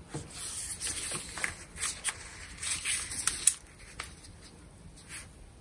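Angle-grinder parts handled in gloved hands: irregular rustling and small plastic-and-metal clicks, the sharpest click about three and a half seconds in, followed by a few lighter clicks.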